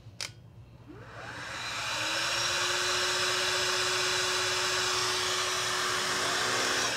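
A click, then a Miele Triflex HX1 cordless stick vacuum's motor spins up over about a second and runs steadily for about five seconds. It is switched off near the end and winds down, a bench test run with the dust cup still off.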